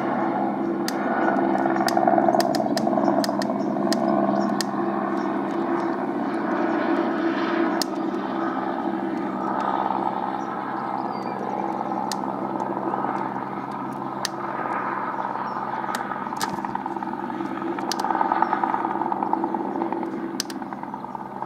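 Aerospatiale AS350B2 Ecureuil single-turbine helicopter flying low overhead: a steady turbine and rotor drone with several held tones, swelling about two seconds in and again near the end as it passes. Scattered sharp clicks sound over it.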